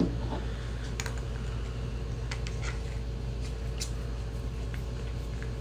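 A few scattered light clicks and taps from small hard objects being handled, over a steady low electrical hum.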